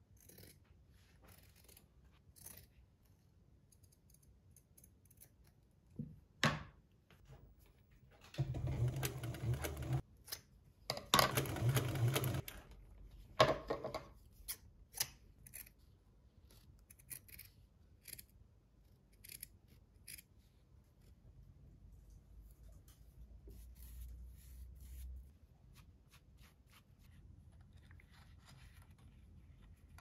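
Scissors snipping through alcantara fabric and thread, a string of short sharp snips. About a third of the way in come two louder stretches of a second or two each.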